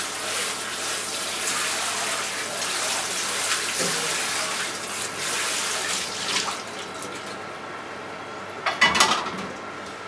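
A Toshiba microwave oven running with a steady low hum, under a loud rushing hiss like running water that fades out about six and a half seconds in. A short clatter near the end.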